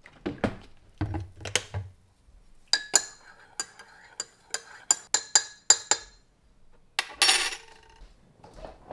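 A metal spoon stirring coffee in a ceramic mug, clinking against the sides about ten times with a bright ringing tone. A few dull knocks come first, and a short scrape follows near the end.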